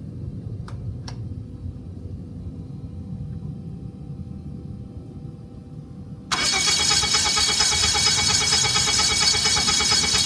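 Viking 130 aircraft engine with propeller being cranked by its starter. A loud, rhythmic cranking starts suddenly about six seconds in and never catches: the engine will not start even with good fuel pressure and flow. Two sharp clicks come about a second in.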